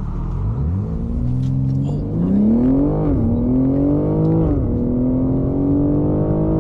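BMW M3 engine accelerating hard, revs climbing from about half a second in, with two quick upshifts where the pitch drops sharply, about three and four and a half seconds in, then pulling steadily in the next gear.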